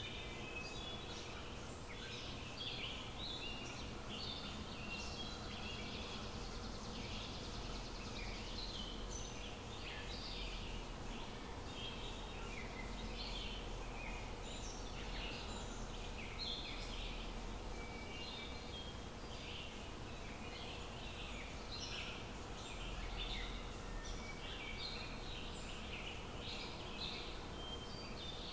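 Small birds chirping and singing in quick, overlapping calls throughout, over a steady low outdoor background rumble.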